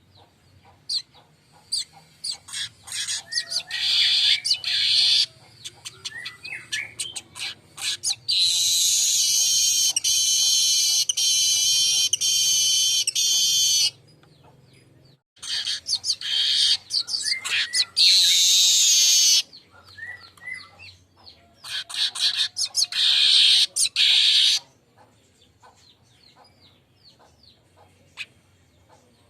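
Manyar (weaver bird) song: runs of sharp ticks and chips that build into long, high, sizzling chatter, three times. The longest lasts about six seconds and cuts off suddenly.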